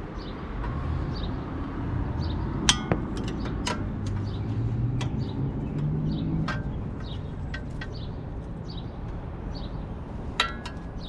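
Metal hand tools clinking and knocking on suspension bolts while they are being tightened to torque. A sharp, ringing metallic strike comes about three seconds in and another near the end, with a low hum rising in pitch in the middle.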